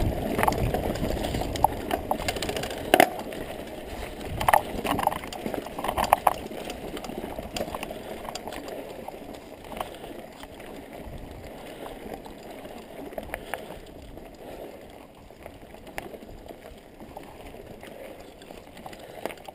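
Mountain bike riding over a dirt forest trail: rumble of the knobby tyres with knocks and rattles from the bike over bumps, busier and louder for the first several seconds, then a quieter, smoother roll.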